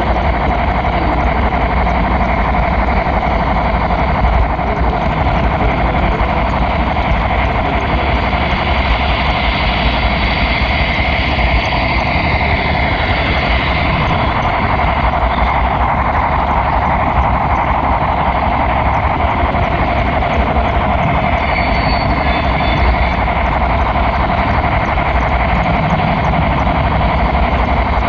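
Steady rolling rumble and rattle of an HO-scale model train on the track, picked up up close by a camera riding on a flatcar pushed by a model diesel locomotive.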